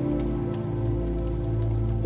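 Soft ambient music of long held notes over a low rumble, with faint scattered ticks behind it.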